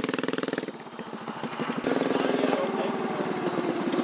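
Mini bike's small single-cylinder engine running with a fast, even popping exhaust note. It eases off about a second in and picks back up near the halfway point.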